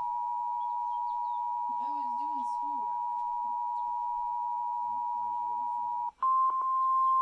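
Emergency Alert System attention signal: a steady two-tone chord (853 and 960 Hz) that cuts off about six seconds in. After a brief gap comes a single louder, slightly higher steady tone, the 1050 Hz weather-radio warning alarm tone.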